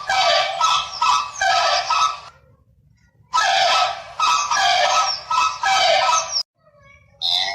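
An animal calling over and over in quick, loud cries, in two runs with a pause of about a second between them. A different, pitched sound begins right at the end.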